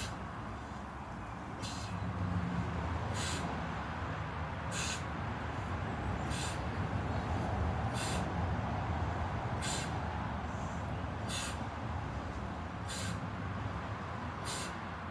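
A person breathing out in short, evenly spaced puffs about every one and a half seconds, in time with side-plank leg raises, over a steady low rumble.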